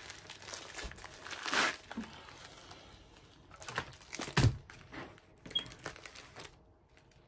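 Plastic packaging crinkling and rustling in handling: a grey poly mailer and the clear plastic sleeve of a rolled canvas. The rustles come in uneven bursts, the loudest about four and a half seconds in, and die away near the end.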